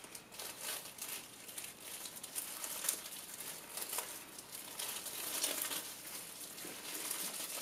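Crinkling and rustling of thin plastic separator film and electrode foil sheets being pulled apart by hand from a cut-open lithium polymer pouch cell, in irregular little crackles.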